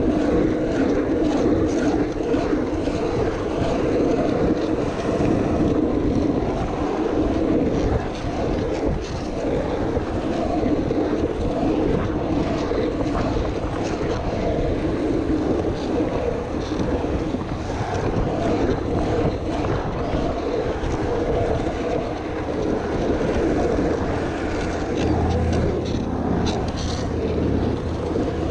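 Steady rumble of wheels rolling fast over a smooth asphalt pump track, with wind buffeting the microphone. A deeper hum joins near the end.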